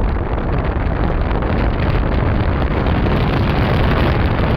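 Vauxhall Insignia's engine pulling under load while driving, with heavy wind buffeting on the microphone that largely masks a flapping from the auxiliary drive belt. The flapping is the sign of a seized alternator freewheel pulley letting the belt flap around between 1,000 and 1,500 rpm.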